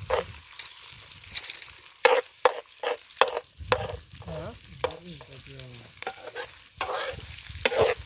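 Chopped onions frying in hot oil in an aluminium pot as they brown, stirred with a slotted steel skimmer. The oil sizzles steadily under a string of sharp metal scrapes and knocks of the skimmer against the pot.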